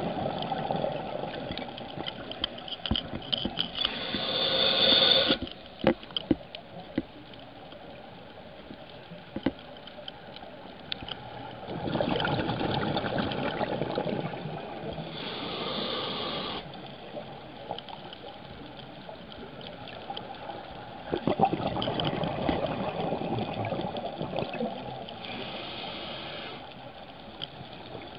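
Scuba regulator breathing heard underwater: slow breaths about every nine seconds, each a rush of bubbling followed by a sharper hiss that cuts off suddenly. There are a few light clicks, and a steady underwater wash in between.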